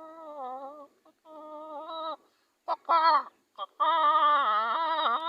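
A man imitating a rooster's crow with his voice: several drawn-out, wavering calls, the last and loudest starting about four seconds in.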